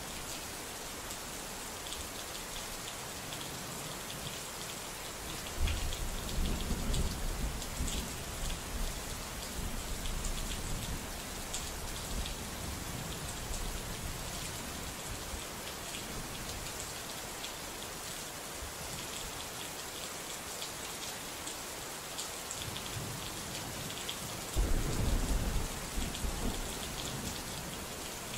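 Steady heavy rain falling, with two low rolls of thunder, one about six seconds in and another near the end, each lasting a few seconds.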